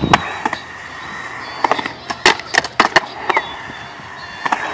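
Skateboard riding a concrete bowl: wheels rolling on the concrete, with sharp clacks of the board and trucks. There is a pair right at the start as the board works the coping, a quick run of clacks in the middle, and a few more near the end.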